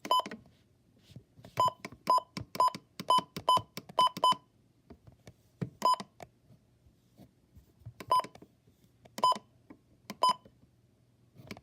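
Short touch-tone (DTMF) beeps on a NOAA Weather Radio broadcast, about a dozen of them. A quick run of seven comes in the first four seconds or so, then single beeps one to two seconds apart.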